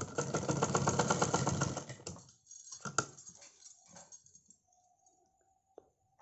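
Usha domestic sewing machine stitching: a fast, even clatter that stops about two seconds in. A sharp click follows about a second later, then a few lighter clicks.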